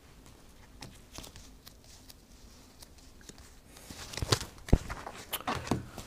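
Playing cards being handled on a tabletop: a few light taps and clicks, then from about four seconds in a busier stretch of cards sliding, rustling and snapping.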